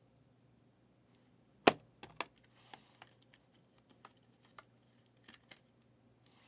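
A clear rigid plastic trading-card holder being handled as a thick relic card goes into it: one sharp plastic click about two seconds in, two smaller clicks right after, then light scattered ticks and rubbing of plastic.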